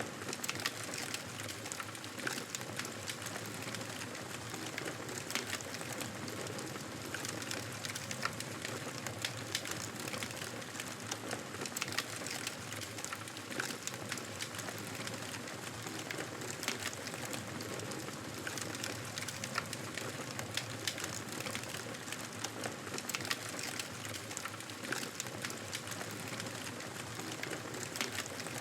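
Wood fire burning in a fireplace: a steady hiss of flames with frequent small crackles and pops scattered throughout.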